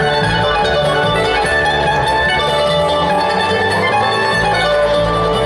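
Bluegrass band playing live: mandolin picking, with upright bass underneath.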